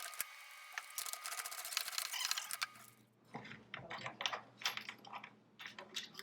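Rapid ratcheting clicks from a tool turning the threaded bolt of a table leg in the wood, stopping about three seconds in. Then scattered small clicks and knocks of handling.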